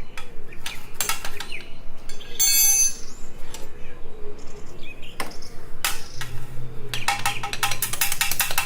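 Scattered sharp clicks and a short metallic-sounding ring, then a fast run of clicking toward the end.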